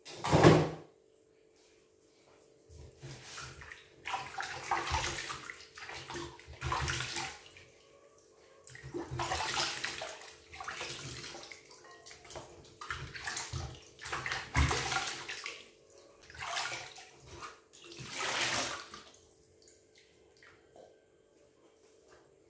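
Hands splashing and rubbing avocados in a glass bowl of water in a stainless steel sink, in a run of irregular sloshing bursts that die away near the end. A sharp knock comes about half a second in.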